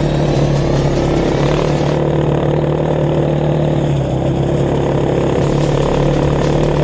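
Dirt bike engine running at a steady throttle while riding along gravel, with a steady low hum over a continuous rush of wind and tyre noise. The sound goes dull for about three seconds in the middle, then clears.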